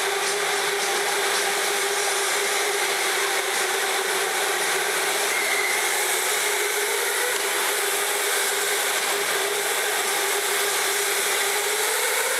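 Electric go-karts lapping an indoor track: a steady electric whine over a continuous rushing noise, the whine rising slightly in pitch near the end.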